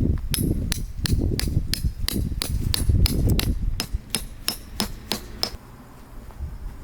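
Hammer striking metal in a steady series of sharp blows, about three a second, each with a bright ring. The hammering stops about five and a half seconds in.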